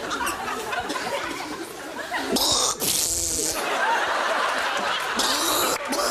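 Studio audience laughing, with a couple of short bursts of hissing noise over it.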